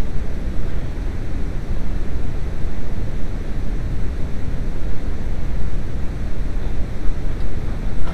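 Steady low rumbling noise, uneven in loudness, with no distinct knocks or clicks.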